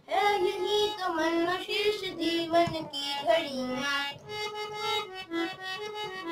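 A boy singing a Krishna bhajan over his own harmonium. A little over halfway through the singing stops and the harmonium plays the melody alone in a run of short reedy notes.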